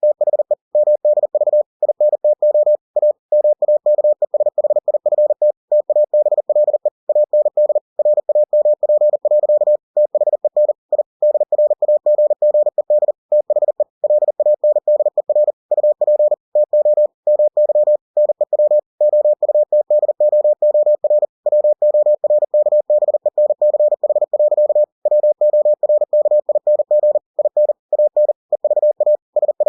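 Computer-generated Morse code (CW) sent at 40 words per minute: a single steady mid-pitched tone keyed on and off in rapid dots and dashes, with short pauses between words.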